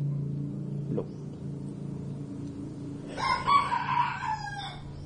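A rooster crowing once, starting about three seconds in and lasting a little under two seconds, its pitch dropping at the end. A steady low hum runs underneath.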